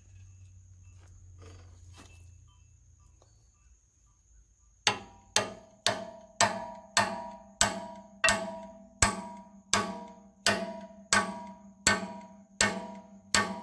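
Hammer blows on a gib-key puller set against the stuck gib key of an International Type M 6 hp engine's flywheel hub. About five seconds in, around fourteen sharp metallic strikes begin, each ringing on, at first about two a second and then slowing a little. Before that there are only faint handling clicks and a low hum.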